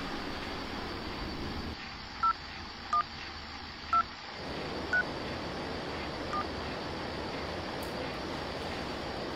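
Mobile phone keypad dialing tones: five short beeps at slightly different pitches, spaced irregularly about a second apart, as digits are tapped in, over a steady background hiss.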